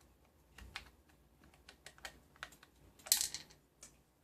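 Small screwdriver and servo mounting screws clicking and ticking against an RC car's plastic chassis as the screws are fitted, in scattered irregular clicks, with a short louder rattle a little after three seconds in.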